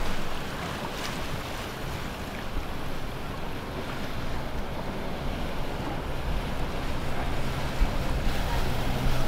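Express cruiser's engines running at slow cruising speed, a low steady drone that grows louder in the second half, over the rush of its wake. Wind buffets the microphone.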